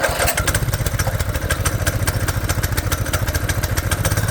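Coleman go-kart's small single-cylinder engine catching and running steadily on a newly fitted replacement carburetor, with a fast, even firing beat.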